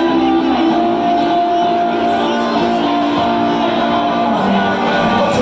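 Live rock band playing loud, with electric guitar holding sustained notes and chords.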